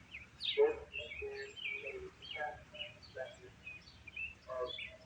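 Small birds chirping in short, irregular calls.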